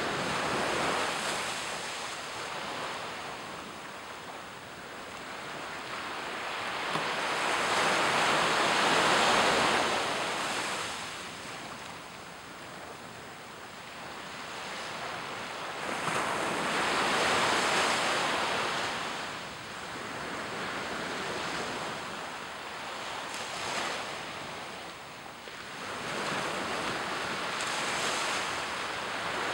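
Small waves breaking and washing up on a sandy beach, the surf swelling and fading every several seconds.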